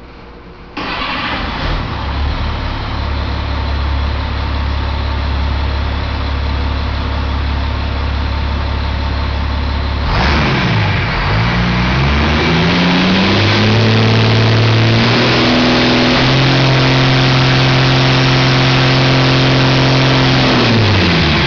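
2003 Caterpillar 3126 inline-six turbodiesel engine starting about a second in and idling steadily. About ten seconds in it is revved up, held at high speed, and drops back near the end.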